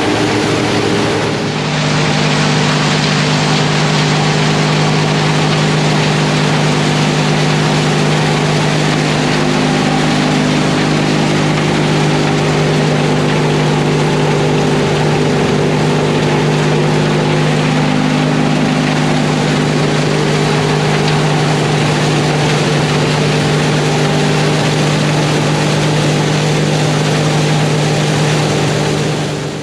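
John Deere tractor engine running steadily under load, driving silage machinery, with a dense rushing hiss over the engine's steady hum.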